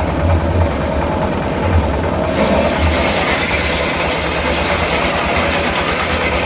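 Sawmill engine running steadily with a pulsing low rumble; about two seconds in, a higher hiss joins it and carries on.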